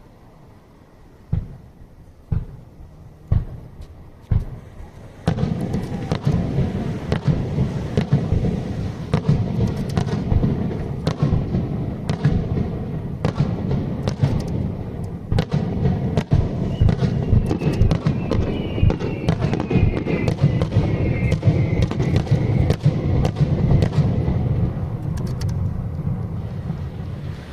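Aerial fireworks bursting: four single bangs about a second apart, then from about five seconds in a dense, continuous barrage of bangs and crackling.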